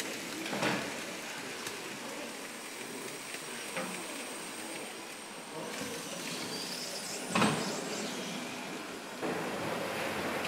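Steam hissing around a Hathorn Davey steam pumping engine, with two louder rushes of steam, about a second in and about seven seconds in, and a faint high whistle between them. The engine is leaking steam in several places as the crew tries to start it.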